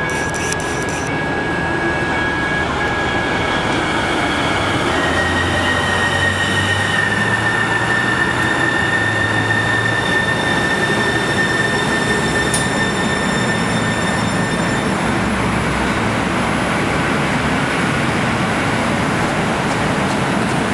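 Kinki Sharyo light rail train arriving and slowing to a stop at the platform, with a steady high whine that fades out about 15 seconds in.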